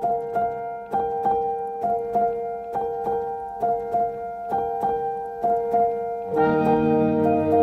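Background music: a keyboard repeats a short figure of struck notes, about two to three a second, over a steady held note. About six seconds in, a fuller accompaniment of low held notes joins.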